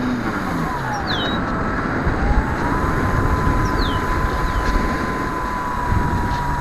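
Electric motor of an E-flite Apprentice RC seaplane whining as the throttle changes: its pitch dips, rises again about two seconds in and then holds steady, over a steady noise. A few short, high, downward-sliding bird chirps come through.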